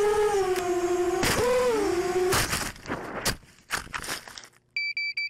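A long held pitched tone that wavers about a second in and stops just after two seconds, followed by a few scattered knocks. From near the end comes a rapid, even, high-pitched electronic beeping, about three beeps a second.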